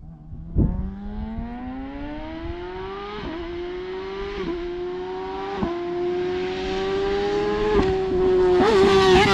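Kawasaki ZX6R 636 inline-four sport bike with an aftermarket free-flowing exhaust, accelerating hard toward the listener. Its pitch climbs through the gears with four quick upshifts, and it grows steadily louder, loudest near the end.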